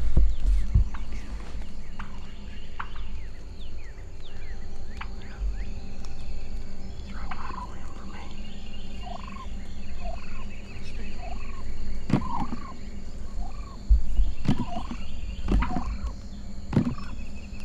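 Rio Grande wild turkeys calling: a string of short, curved call notes, with a few louder, sharper calls in the last few seconds.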